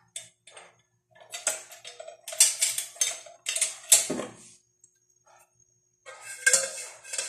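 Kitchen dishes and utensils clinking and clattering as they are handled on the counter, in two bouts of short knocks.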